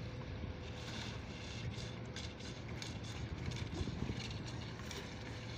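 Steady low hum of a boat engine running, with irregular splashes and rustling as a fishing net is hauled aboard by hand.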